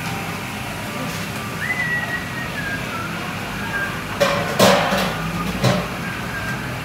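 Busy restaurant background noise with faint music, and three sharp clatters, like metal or crockery knocking, about four to six seconds in.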